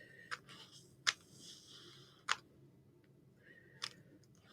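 A Rubik's cube being turned by hand: a few sharp, separate plastic clicks about a second apart, with pauses between the moves.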